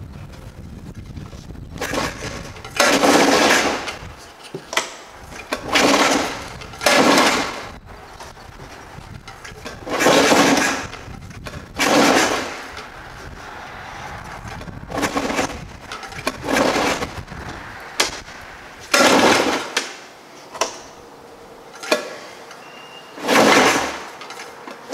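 Polaris Trail Boss 250's two-stroke engine being pull-started by hand on its recoil rope: about nine or ten hard pulls, each a rasping whir of a second or so, with short clicks between them. The engine turns over but does not catch. It has sat for 22 years and was just fuelled with mixed gas.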